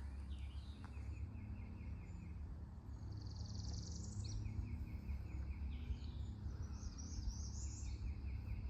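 Wild birds calling: three short runs of quick repeated notes and two higher, faster trills, over a low steady rumble.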